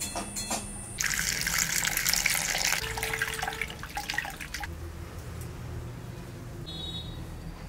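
Water pouring and splashing in a clay bowl as green and red chillies are washed by hand: a loud rush for a couple of seconds, then sloshing and dripping that die down.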